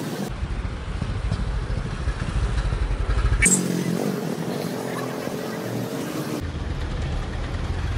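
Street traffic and vehicle rumble heard from inside a moving vehicle, with motorcycles among the passing traffic. The sound changes abruptly with a click about three and a half seconds in, and changes again about six and a half seconds in.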